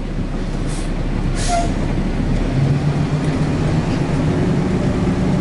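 Roll-off trash truck's diesel engine running, with two short hisses of air in the first two seconds; about halfway through the engine note comes up and rises in pitch as it revs.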